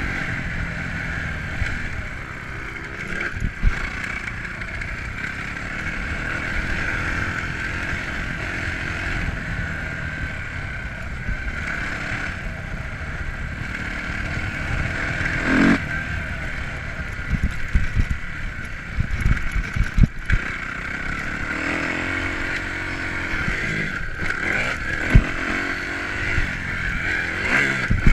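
2009 Kawasaki KX250F's four-stroke single-cylinder motocross engine being ridden hard on a dirt track, revving up and dropping back several times as the rider works the throttle. Heard from an on-bike camera, with a steady wind rush and scattered knocks and clatter from the bike over bumps, many of them between about 17 and 20 seconds in.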